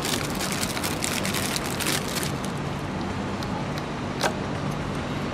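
Clear plastic wrapping crinkling as it is pulled open by hand for about the first two seconds, then a single sharp click a little after four seconds in, over a steady low background rumble.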